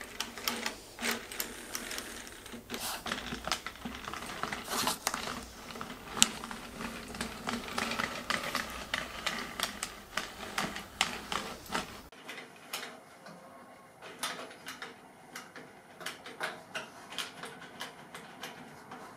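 Hand-cranked 3D-printed circular sock knitting machine running, its plastic cam ring driving the needles up and down in their slots with a rapid, irregular clicking and clattering as it knits a tube of yarn.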